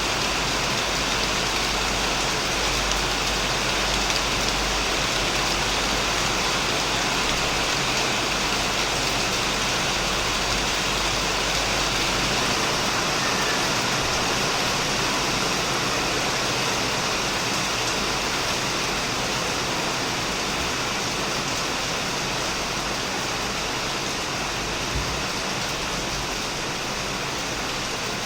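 Heavy rain falling steadily on a shed roof, a dense even hiss of drops with a low rumble underneath that fades somewhat partway through.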